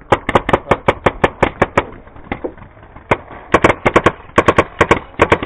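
Paintball marker firing rapid strings of shots at about eight a second: one string for the first two seconds, a single shot about three seconds in, then another fast string through the second half.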